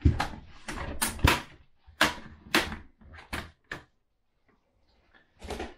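Plastic retaining clips of a Dell Vostro laptop's bottom cover cracking loose one after another as a prying tool works along the seam: a run of sharp snaps, then a pause and one last snap near the end. It sounds a bit violent, but that is the normal sound of the cover coming off.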